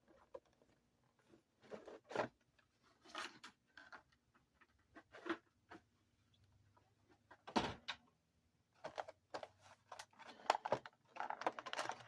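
Scattered clicks, knocks and rustles of packaging being handled as a model locomotive is taken out of its box, with one louder knock a little past the middle.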